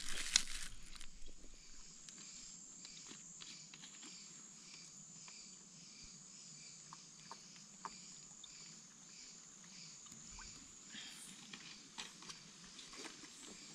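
Night insects in the forest: a steady high-pitched drone with a softer chirp repeating about three times a second. A plastic bag of food crackles loudly at the very start, and a few small clicks from handling and eating come later.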